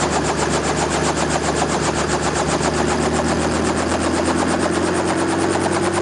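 Robinson R44 Raven II helicopter running on the ground, its two-bladed main rotor turning and its six-cylinder Lycoming piston engine sounding as one loud, rapid, even pulsing over a steady hum. The pitch rises slightly near the end as the rotor speeds up.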